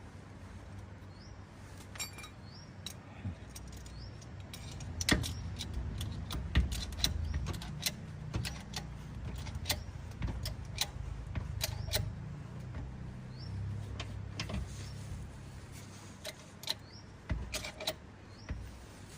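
A jack being worked to lift one side of an electric tricycle camper off the ground: many sharp metallic clicks and clanks, busiest through the middle, over a low rumble.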